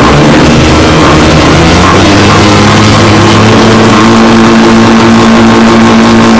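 A motocross dirt bike's engine held at high revs behind the starting gate, waiting for the gate to drop. Its pitch rises about two seconds in and then holds steady.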